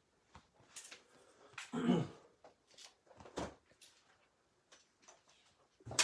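Scattered light clicks and knocks, with a louder thud about two seconds in and a sharp click near the end.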